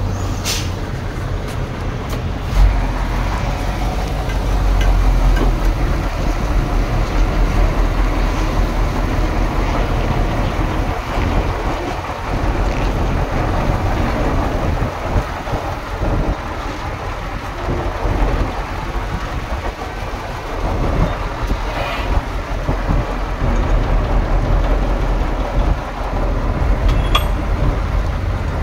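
Heavy diesel earthmoving machinery running steadily with a deep low rumble, with a few sharp knocks mixed in.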